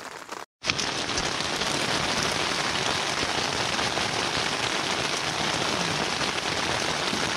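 Heavy rain pouring onto the tent fabric, heard from inside the tent: a steady dense patter that starts suddenly about half a second in after a brief dropout.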